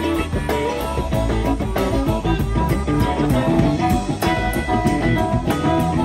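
Live electric rock band playing an instrumental jam: electric guitars, electric bass and drum kit, with a steady beat and guitar lines over it, no singing.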